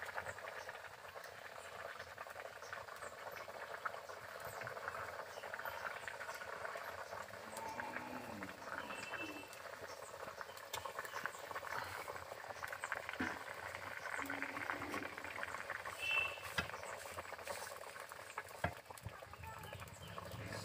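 Fish curry broth boiling in an iron kadai, a steady dense bubbling and popping, with two sharper clicks near the end.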